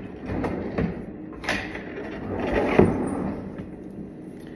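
Handling noises: a few short scrapes and rustles of objects being moved, with a sharp knock a little under three seconds in.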